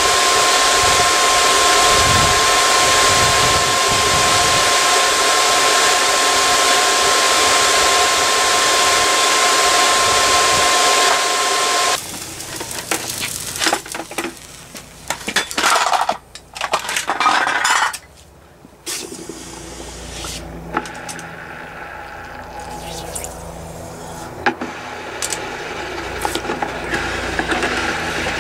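A homemade aluminium-melting forge running with a loud, steady rushing noise and a thin high whine. It cuts off abruptly about 12 seconds in and gives way to metallic clinks and knocks as cast aluminium ingots are knocked out of a muffin tin over a plastic bucket.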